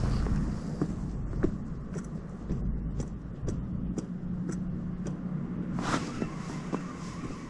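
Daiwa Crest LT4000-C spinning reel cranked steadily through a lure retrieve, faint ticks about twice a second, over a steady low rumble. A brief rush of noise comes near the end.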